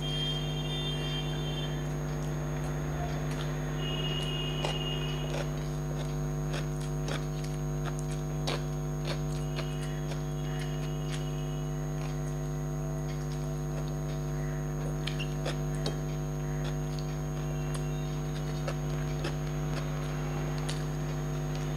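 A steady electrical hum, with faint chewing and mouth clicks from eating rice and chicken by hand. A few brief high chirps come and go.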